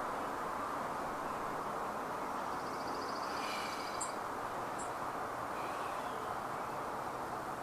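Steady background noise of road traffic from a nearby street, with a short high bird trill about three seconds in.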